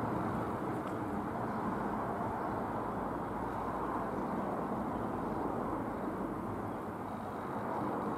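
Robin R3000/140 light aeroplane's single piston engine and propeller droning steadily as it flies overhead.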